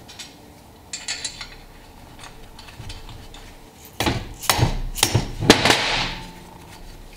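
A mallet knocking a ring gear down onto a Dana 44 differential carrier: about five sharp knocks in under two seconds, past the middle. There is a brief metallic clink about a second in.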